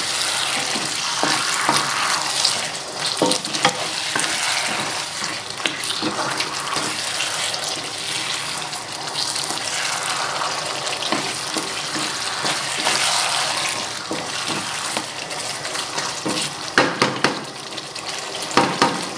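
Chicken wings sizzling in thick curry paste in a frying pan, stirred with a wooden spatula that scrapes the pan and knocks against it now and then.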